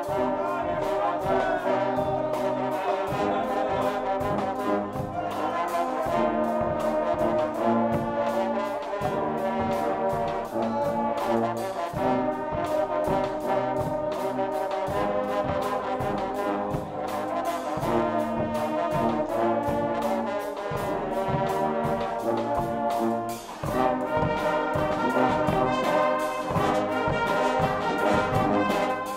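Guggenmusik band playing: a loud brass section of trumpets, trombones and big bass horns over a driving drum kit beat, with a brief break about three-quarters of the way through.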